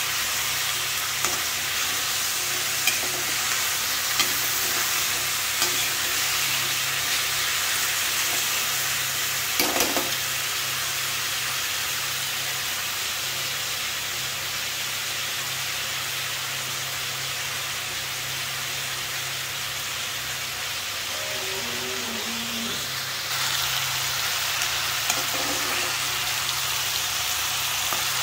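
Potato and cauliflower pieces frying in hot mustard oil in a kadai: a steady sizzle, a little louder in the last few seconds, with scattered clicks and scrapes of a slotted spoon stirring against the pan.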